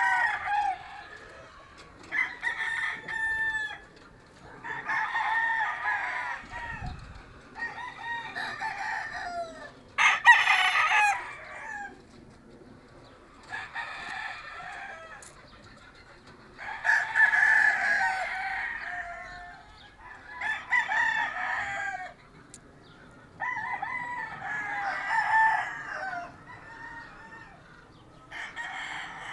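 Gamefowl roosters crowing one after another, about ten crows in turn from different birds, each lasting one to two seconds, with short pauses between them.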